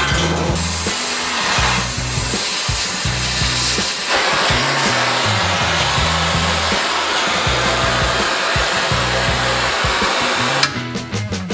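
Oxy-fuel torch flame hissing steadily as it heats a steel flat bar, growing louder about four seconds in and cutting off sharply near the end. Background music with a steady bass line plays underneath.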